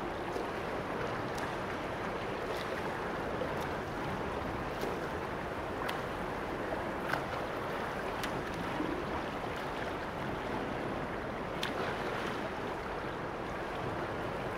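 Steady rushing water noise, with a few faint ticks scattered through it.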